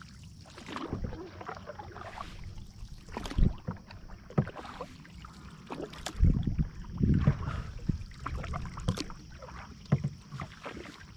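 Canoe paddles dipping and pulling through calm river water, a stroke every second or two, with a few sharper knocks of a paddle against the canoe.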